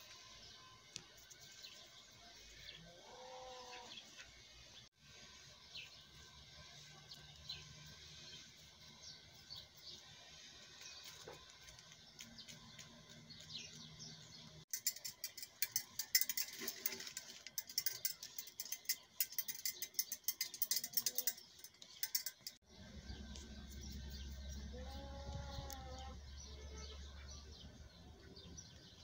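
Small birds chirping throughout. A cat gives a short meow about three seconds in and another near the end. In the middle, several seconds of dense crackling clicks are the loudest sound.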